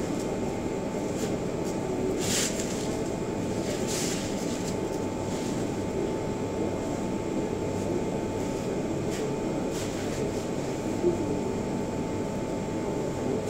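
A steady machine hum with a constant tone runs throughout, with a few short whooshes of a stick swung through the air, and one brief sharp knock near the end.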